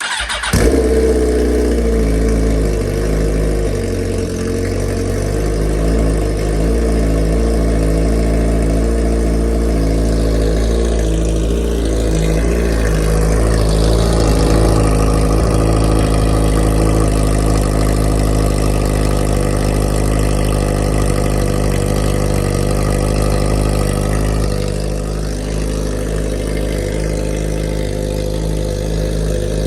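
Suzuki GSX-R1000's inline-four engine starting up and then idling steadily, its pitch wavering briefly about twelve seconds in and the idle settling a little quieter near the end.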